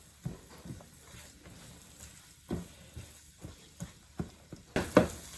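Sliced onion frying in oil with garlic and ginger in a frying pan, stirred with a utensil: a low sizzle with scattered scrapes and knocks against the pan, and one sharp knock about five seconds in.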